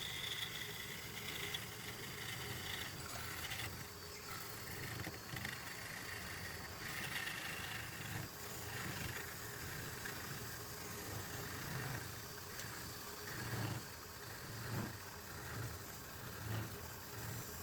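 A motor running steadily, with a faint high whine that comes and goes over the first half.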